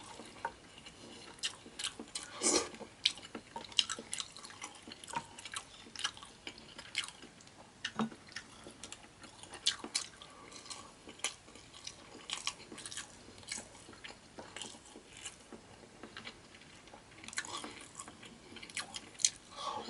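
Close-up eating sounds of a person chewing and biting seafood, with frequent short wet smacks and clicks at an irregular pace.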